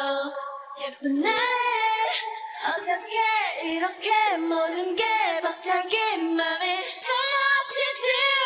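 Female pop singers' live vocals sung into headset microphones with the instrumental backing track removed, leaving bare singing lines with no bass or beat underneath.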